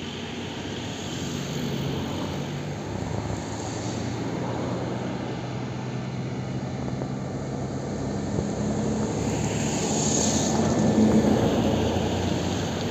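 Jet engines of an Airbus A321neo airliner running as it rolls along the ground, a steady rushing roar with a low hum that swells to its loudest about ten seconds in and then eases.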